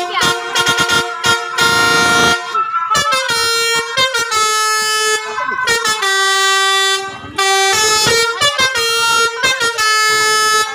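Bus's Basuri multi-tone musical air horn playing a 'telolet' tune: loud held horn chords that step to a new pitch every second or so, broken up by quick stuttering toots.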